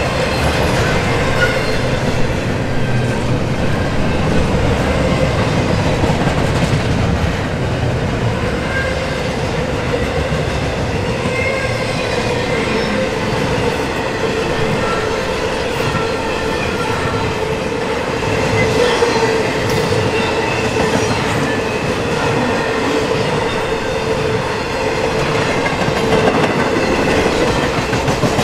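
Norfolk Southern intermodal freight train's cars passing close by: a steady rumble and clatter of wheels on the rails from double-stack container cars and trailer-carrying flatcars, with a steady whine running under it.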